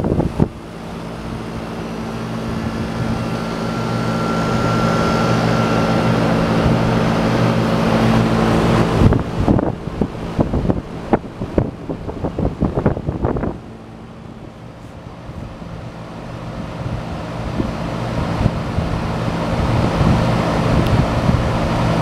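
American Standard heat pump outdoor unit running during its defrost cycle, with a steady compressor hum. About halfway through there are several seconds of irregular gusts of wind on the microphone.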